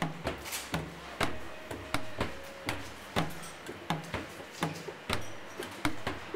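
Percussive background music: sharp wooden-sounding knocks and drum hits, several a second in an uneven rhythm, with a brief held note now and then.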